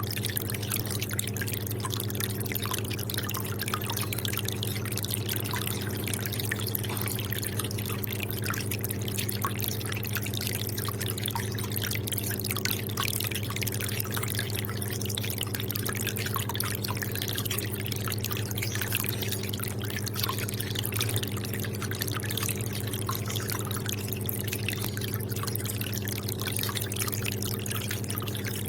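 Aquarium water trickling and dripping, with many small pops scattered through it, over a steady low hum.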